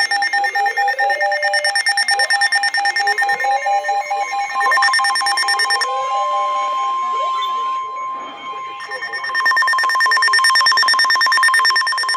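Several NOAA weather radios sounding the steady 1050 Hz warning alert tone out of step with one another, under rapidly pulsing alarm beeps. There is a brief dip about eight seconds in.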